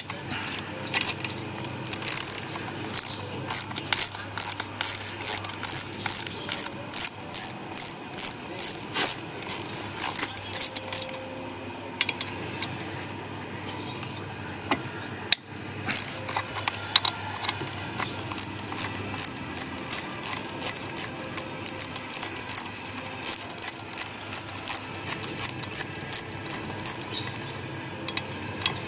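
Socket ratchet wrench clicking in quick, even runs of about three clicks a second as the 12 mm bolts on an outboard motor's water pump housing are backed out, with a pause of a few seconds midway broken by one sharp click.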